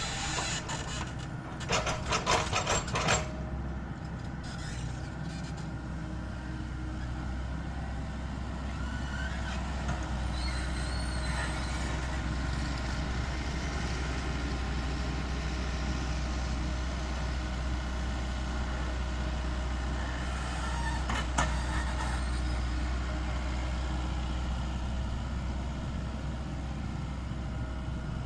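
Heavy diesel construction machinery running steadily with a low engine hum. A burst of metallic clanking comes about two seconds in, and a single sharp knock comes later.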